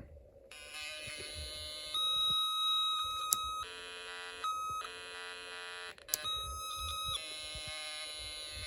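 Snap Circuits electronic keyboard sounding through its speaker as steady, electronic notes rich in overtones. The pitch jumps several times between a higher note and a much lower one, the lower being the green keys dropped in pitch by the C7 capacitor while the S2 press switch is held.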